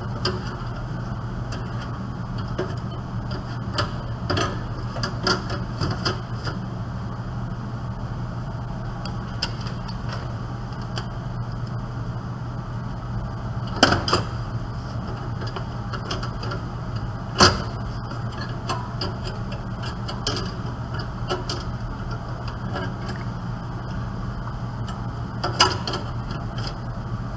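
Scattered small clicks and a few sharper knocks as a hard drive is handled and fitted into a desktop computer case, over a steady low hum.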